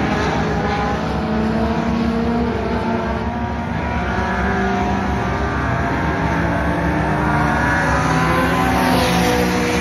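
Several dirt-track race cars running laps together, their engines overlapping, each pitch rising and falling as they accelerate and lift through the turns.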